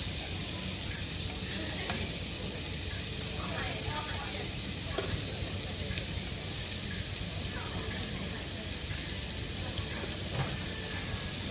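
Thin-sliced beef and onions sizzling steadily in a shallow sukiyaki pan, with a few light clicks as chopsticks turn the meat.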